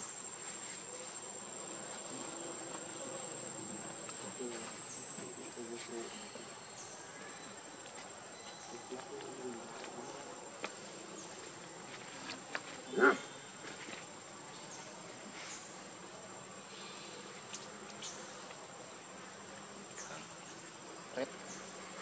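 Insects droning with a steady high-pitched tone, with scattered faint ticks and rustles. A little past halfway there is one brief, louder pitched call.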